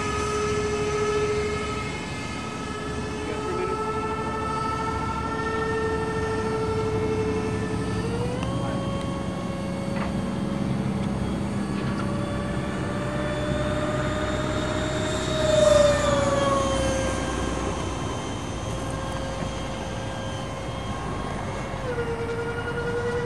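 GWS F-15 RC model jet's electric motor whining in flight, a steady pitched whine. It steps up in pitch about a third of the way in and drops back down near the end. Past the halfway point it briefly grows louder and its pitch falls as the plane goes by.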